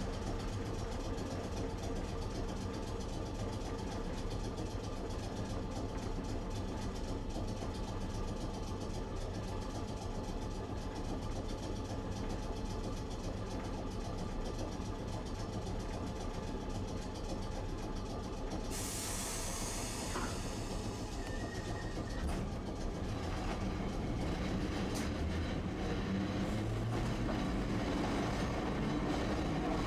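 Tosaden streetcar heard from inside the car: a steady low hum while it stands. About two-thirds of the way through comes a sudden hiss of air that fades over a couple of seconds, and near the end the running noise grows louder as the tram moves off.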